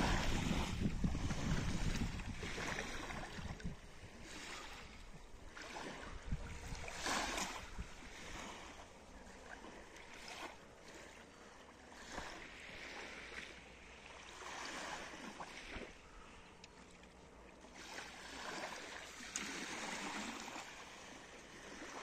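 Small sea waves washing gently ashore, rising and falling every second or two, with wind buffeting the microphone in the first couple of seconds.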